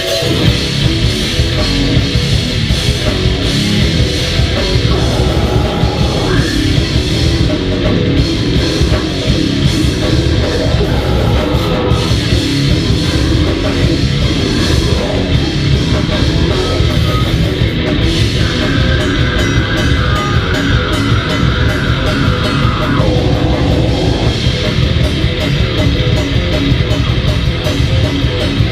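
Goregrind band playing live: heavily distorted guitars over a fast drum kit, loud and dense.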